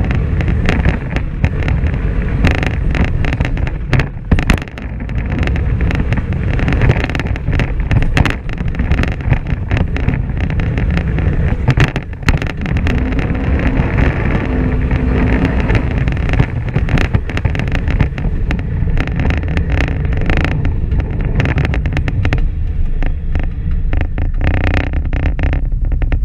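Polaris RZR XP 1000 side-by-side heard from on board while driving a dirt track, its parallel-twin engine running steadily under way. Frequent short knocks and rattles come through from the rough ground.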